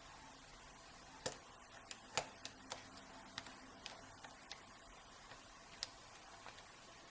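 Hook pick working the pin stack inside an Iseo euro cylinder lock: about a dozen small, sharp, irregular clicks between about one and six seconds in.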